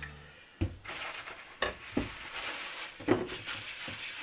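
A towel rubbing cooking oil into a small cast iron skillet to season it, a scratchy rubbing that builds from about a second in, broken by several sharp knocks.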